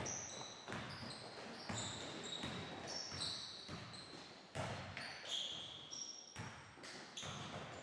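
Basketball dribbled on a hardwood gym court, bouncing at uneven intervals, with short high sneaker squeaks from players' shoes on the floor.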